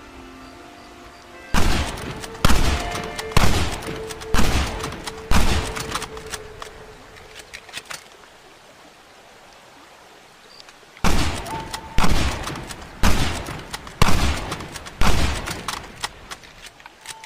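Carcano rifle firing two strings of five shots, about one shot a second, each shot trailing off in an echo, with a pause of several seconds between the strings.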